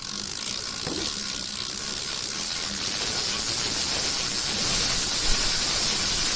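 Bicycle chain running over the sprockets as the cranks turn: a steady whirring hiss that grows somewhat louder over the first few seconds.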